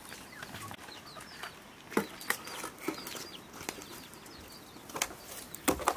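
Birds chirping in short, quick calls, with a few sharp knocks: a pair about two seconds in and another pair near the end.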